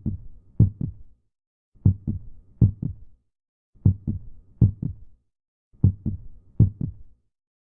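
A deep, heartbeat-like beat of low thumps with silence between. Each group is one thump and then a quick pair about half a second later, repeating every two seconds.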